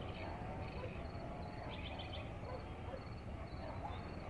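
Evening countryside chorus: insects, likely field crickets, chirping in short repeated high-pitched bursts, over a wavering lower chorus of frog-like calls. A brief bird call comes about two seconds in, over a faint low rumble.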